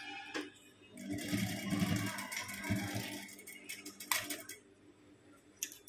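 Industrial sewing machine running a short burst of stitches through gathered cloth, about two seconds long, starting a second in. It is followed by a couple of separate clicks.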